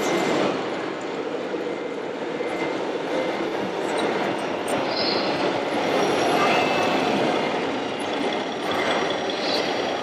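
Steady din of a busy exhibition hall: crowd noise and machinery blending into a continuous rumble with a few faint clicks.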